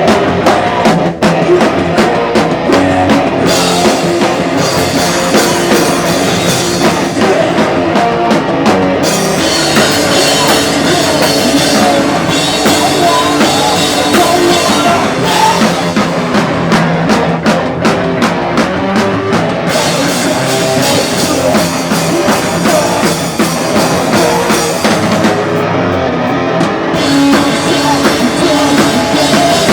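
Live rock band playing loudly: full drum kit with bass drum and cymbals driving under amplified instruments.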